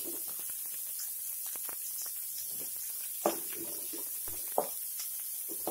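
Chopped onions sizzling in hot mustard oil in a metal kadhai, stirred with a wooden spatula that scrapes and taps against the pan, with two louder knocks about three seconds in and again a second and a half later.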